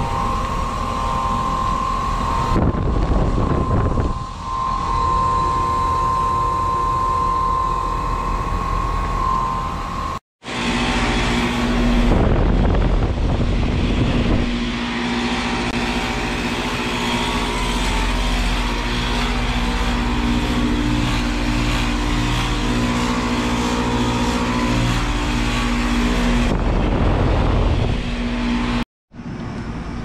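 Outdoor heat pump condenser units running in heating mode, compressor and fan humming steadily. A Trane unit with a steady high whine cuts off about ten seconds in, and a Lennox unit follows with a lower steady hum.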